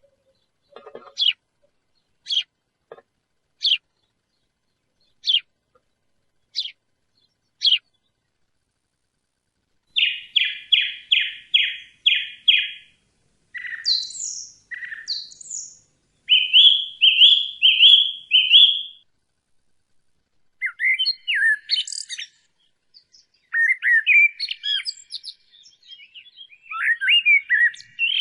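A songbird singing. First comes a string of single short high call notes about a second apart. From about ten seconds in it sings fast runs of five or six repeated notes, and the phrases grow more varied and twittering near the end.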